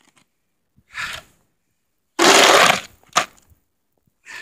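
Snow shovel being driven into deep, fresh snow and scooping it up, heard as crunching scrapes. There is a soft crunch about a second in, then a louder, longer crunch a little after two seconds that ends in a sharp click.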